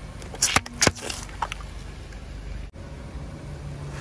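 A car tyre rolls slowly over asphalt with the engine running low. About half a second and a second in come two sharp cracks, hollow plastic toy ice-cream cones splitting under the tyre, followed by a few fainter clicks.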